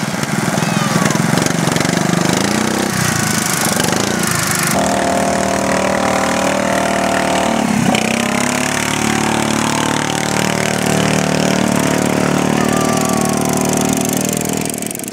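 Engines of racing ride-on lawn mowers running at high revs as the mowers pass, their pitch rising and falling. The sound changes abruptly about five seconds in, then holds a steadier note.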